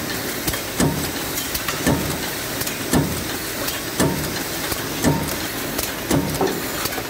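A mechanical power press with an automatic tinplate sheet feeder is stamping tinplate can ends. Each heavy stroke comes about once a second, in an even rhythm, over a continuous machine run-noise, with sharper metallic clicks between strokes.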